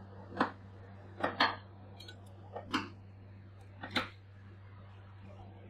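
Metal ice-roll spatulas chopping cherry tomatoes against a steel cold plate: four sharp metal taps about a second apart, the last three each a quick double knock.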